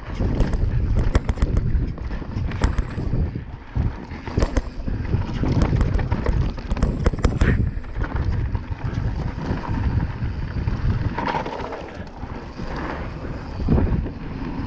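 Mountain bike ridden fast down a dirt forest singletrack: wind buffeting the camera microphone over the tyre rumble, with frequent sharp clacks and rattles of the bike over bumps and roots.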